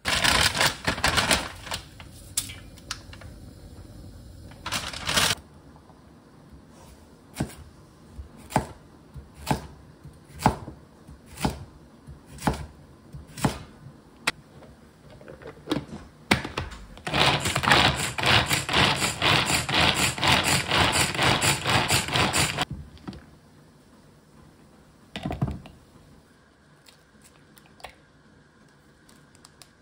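Kitchen utensils knocking and clicking during food preparation: a flurry of clicks, then single sharp knocks about once a second, then about five seconds of fast, even clicking.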